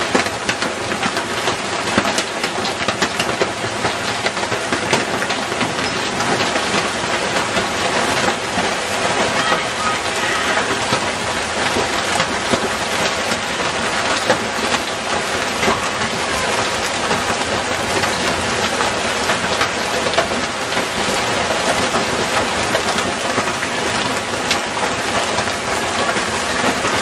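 Heavy wind-driven hail pelting the house and yard: a steady dense rush of noise packed with countless sharp ticks of hailstones striking.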